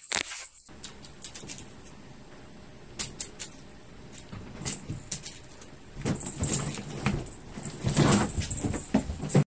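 Fabric pop-up cat tent rustling and crinkling as a cat shifts about inside it and pushes its head out, with scattered sharp ticks. The rustling gets louder from about six seconds in.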